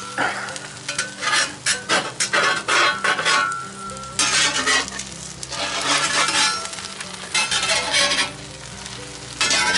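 Stainless steel spatula scraping in repeated strokes across a Lodge Blacklock cast iron griddle, pushing and folding an omelet, in several bouts with short pauses. Eggs sizzle on the hot surface underneath.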